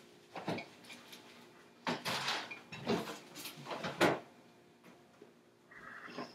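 Kitchen clatter: a string of sharp knocks and clanks of pots, utensils and cupboard fronts, coming roughly a second apart, with a cluster about two seconds in.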